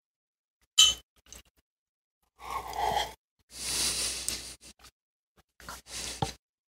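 Metal and plastic parts of a Nakamichi 480 cassette deck clinking and scraping as its tape transport is worked loose from the metal chassis by hand: one sharp clink about a second in, then three spells of rattling and scraping. Played back at double speed.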